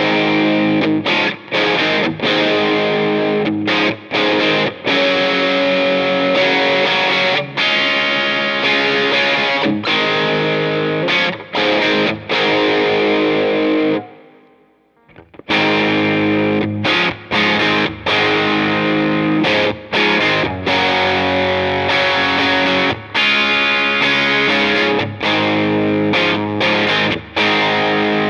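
Electric guitar through a digital Vox AC30-style amp emulation on its overdriven channel, playing chords and phrases with short breaks between them. The playing stops for about a second and a half about halfway through, then starts again.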